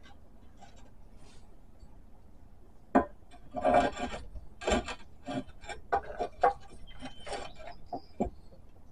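Heavy wooden board scraping and knocking against the metal frame of an old hand-crank drill press as it is worked loose. A sharp knock comes about three seconds in, then a run of rough scrapes and short knocks.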